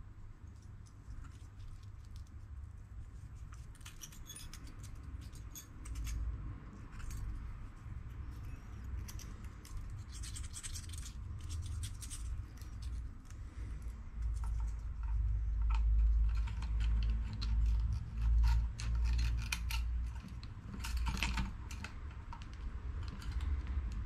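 Small steel engine parts (a pin, a valve stem and its coil spring) clicking and scraping against each other and against the compressor's valve gear as they are fitted by hand. Irregular light clicks, with a low rumble underneath from about six seconds in that is strongest in the second half.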